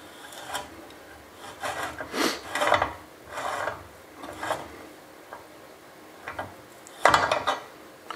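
Hand thread tap and T-handle tap wrench being backed out of a freshly cut thread in an oil sump pan and handled: a series of short scraping, rasping strokes of metal on metal, then a sharp click about seven seconds in, the loudest sound.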